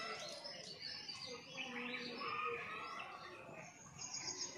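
Birds chirping and calling, many short overlapping chirps.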